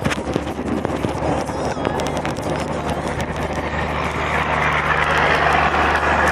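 Riding noise on a bicycle: wind and tyre noise with scattered rattling clicks, and a motor vehicle's engine running close by that grows louder in the second half.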